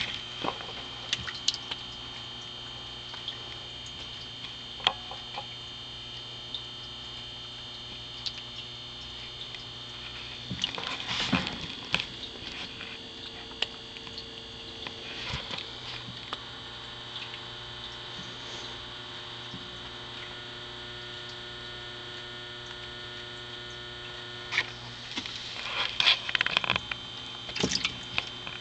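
Steady electrical hum, with scattered sharp clicks and a few brief rustling bursts about 11 seconds in and again near the end.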